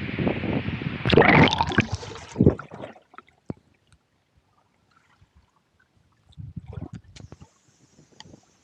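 Water splashing and gurgling loudly for about three seconds, then cutting off suddenly to near quiet with a few small clicks and a brief patch of noise near the end.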